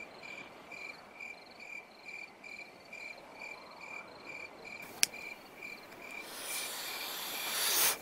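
Crickets chirping at night in a steady rhythm of about two chirps a second. A single sharp click comes about five seconds in, and a hiss swells over the last two seconds and cuts off suddenly.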